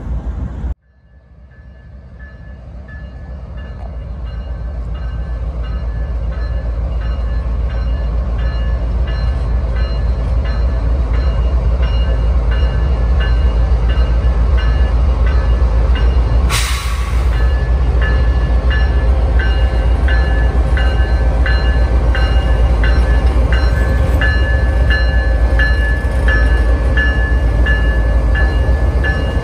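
Union Pacific diesel locomotives pulling an intermodal train close by as it gets moving: a heavy engine rumble that builds over the first several seconds, then holds, with a regular ticking ring over it. A brief sharp hiss comes about 16 seconds in.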